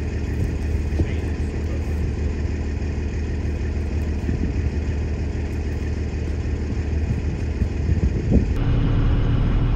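A heavy diesel engine idling steadily, with a low even hum; the sound changes abruptly near the end.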